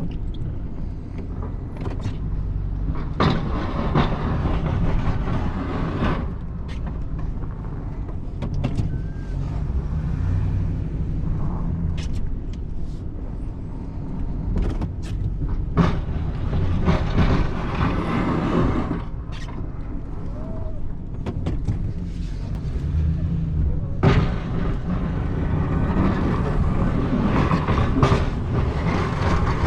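Snowplow truck's engine running with a steady low rumble, with frequent clunks and knocks. Louder stretches of rushing, scraping noise come about two-thirds of the way through and again near the end.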